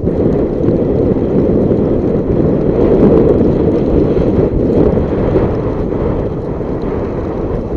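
Wind buffeting the microphone of a camera moving fast down a ski slope: a loud, unsteady low rumble.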